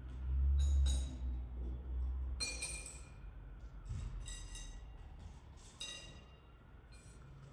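A low rumble in the first two seconds, then three bright ringing pings, like small bells or glass being clinked, spaced a second or two apart and each dying away.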